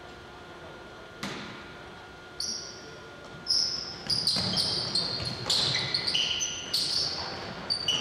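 Basketball game play in a gym: a basketball bouncing on the hardwood floor and sneakers squeaking on the court in many short high squeals. The action picks up from about two and a half seconds in.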